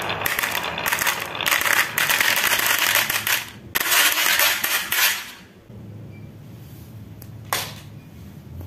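Glass marbles clattering off a wooden Haba marble-run slope into the plastic bed of a toy dump truck: a dense run of clicks and knocks for about five seconds that stops suddenly, then one lone click near the end.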